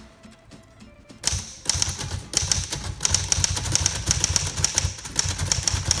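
1931 Royal 10 manual typewriter being typed on. After a quiet first second, a fast, uneven run of sharp keystroke clacks starts and keeps going, several strikes a second, loud because the machine is open at the front.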